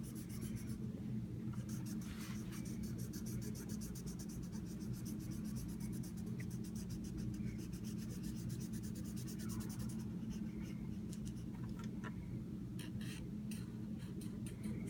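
Colouring in on a paper worksheet: quick back-and-forth scratchy strokes, in a burst near the start and again in the last few seconds, over a steady low hum.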